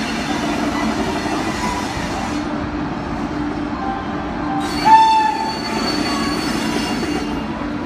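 WAP-5 electric locomotive sounding its horn once, a blast of about two seconds starting a little past the middle and loudest at its onset. Behind it is the steady running noise and hum of the train.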